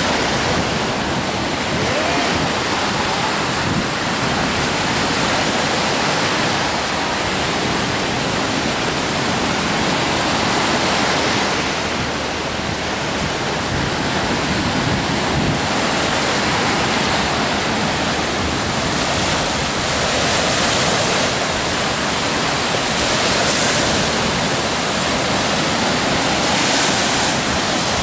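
Gulf of Mexico surf breaking and washing up onto a sandy beach: a steady rushing hiss that swells and eases a little from wave to wave.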